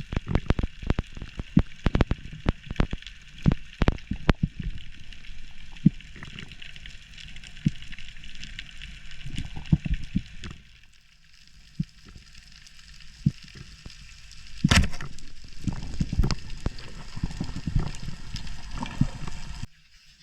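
Underwater sound picked up through an action camera's housing: a steady crackling hiss with many sharp clicks and low knocks and thuds. The knocks are loudest and densest about three-quarters of the way through.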